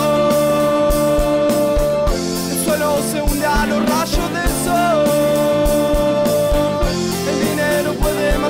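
Rock band playing an instrumental passage: a drum kit with a steady kick and cymbal hits, under a lead line of long held notes that slide from one pitch to the next.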